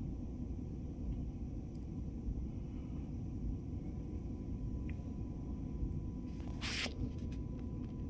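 Steady low rumble of background noise with a faint steady high tone, and a short rustle about six and a half seconds in.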